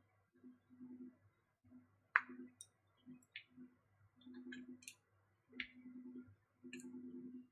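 Scattered small, sharp clicks and taps of tweezers and tiny screws being picked over on a work surface, the loudest about two seconds in. A faint low hum comes and goes underneath.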